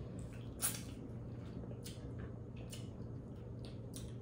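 Eating sounds from a Cajun seafood boil: a few short, wet smacks and clicks as saucy seafood and potatoes are handled and eaten, the loudest just under a second in, over a steady low hum.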